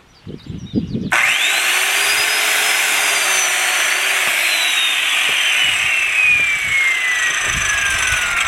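Electric power saw cutting through lumber: a few soft knocks, then the saw starts about a second in with a loud whine that quickly rises and then sinks steadily in pitch as the blade works through the wood, stopping abruptly near the end.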